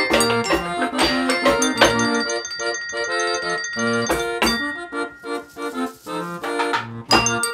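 Hand-cranked organ playing a tune with a band of homemade household-item instruments: struck pots, a bucket and tuned tableware keep a steady rhythm beneath the organ's reedy notes. The percussion thins out briefly about six seconds in.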